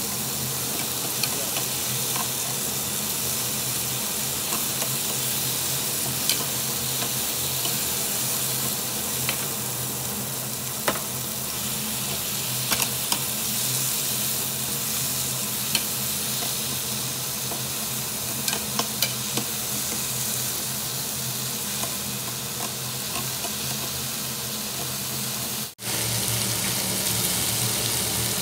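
Marinated duck meat sizzling steadily on a hot Korean barbecue grill plate, with scattered clicks of metal tongs against the grate as the pieces are turned. The sound drops out for a moment near the end.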